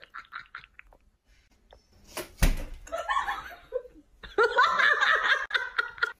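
A person laughing and giggling in short bursts, with a single sharp smack about two and a half seconds in.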